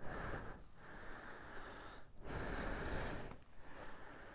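A person breathing: several breaths with short pauses between them, about one a second.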